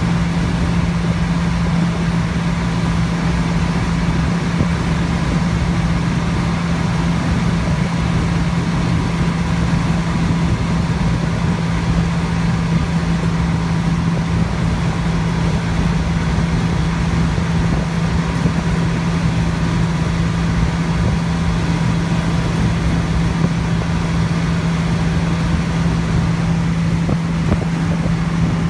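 Steady engine and road noise inside the cab of a classic pickup truck cruising at highway speed, with a constant drone that holds one low pitch.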